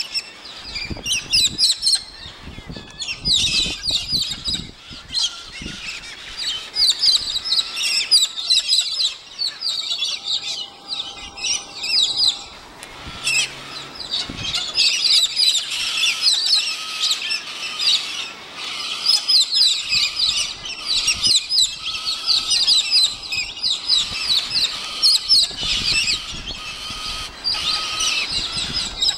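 A flock of galahs (rose-breasted cockatoos) calling noisily: many high, rapid calls overlap almost without a break.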